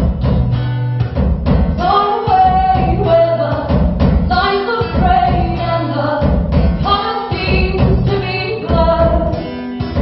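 Live band performance of a song: a woman's singing voice comes in about two seconds in over strummed guitar and a steady low drum beat.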